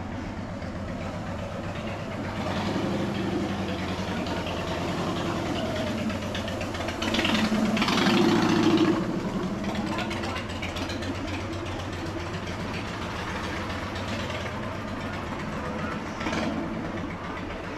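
Vehicle engines running at low revs, with one growing louder for a couple of seconds about seven to nine seconds in.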